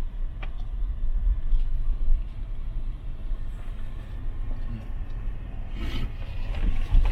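Steady low rumble of a moving vehicle, with a few faint knocks and a brief voice near the end.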